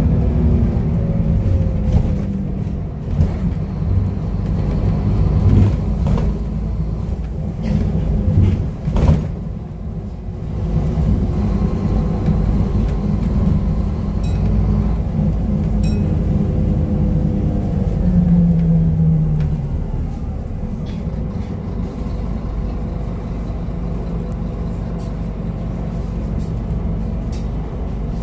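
Scania N230UD double-decker bus heard from inside the passenger saloon while driving: its five-cylinder diesel runs with a steady low drone. A whine falls in pitch at the start, a short pitched note rises about two-thirds of the way through, and knocks and rattles from the body sound through the first third.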